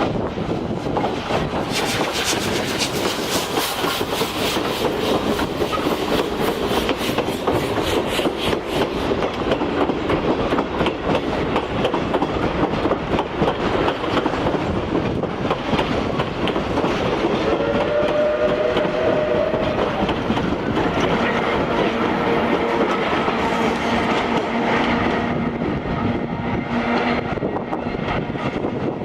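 The C10 steam tank locomotive passing with its train: quick exhaust chuffs, then wheels clacking over rail joints as the coaches roll by. Its whistle sounds for about two seconds partway through.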